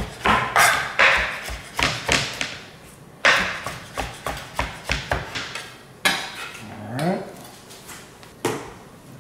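Kitchen knife roughly chopping fresh cilantro on a cutting board: a run of knocks about three a second, with a short break around three seconds in. The knocks stop about six seconds in, and one more comes near the end.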